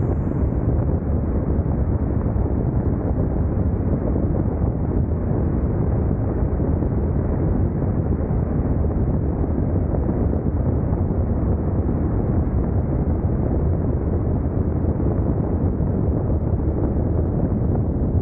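Steady wind rumble on the microphone of a motorcycle riding at speed, mixed with road and engine noise. It is a deep, even roar with no distinct engine note and no change throughout.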